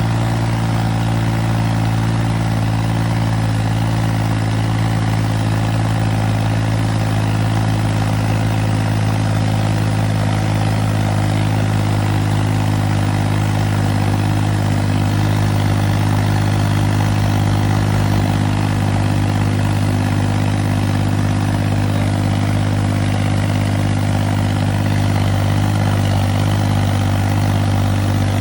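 Ford 3000 tractor's three-cylinder engine running steadily at a constant, low engine speed, its stock sound.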